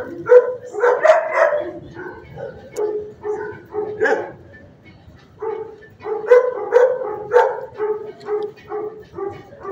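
Dogs barking in the shelter kennels, short barks coming in quick repeated runs, with a brief lull about halfway through.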